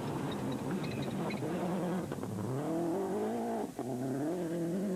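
Subaru Impreza rally car's turbocharged flat-four engine revving hard at speed, its pitch rising and falling through gear changes, with a brief sharp break in the sound about three-quarters of the way in.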